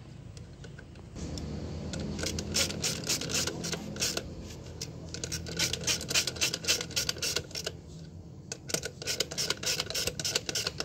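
Hand ratchet wrench clicking in quick runs, with two short breaks, as the nuts on a truck's rear axle shaft flange are snugged down evenly, not yet at full tightness.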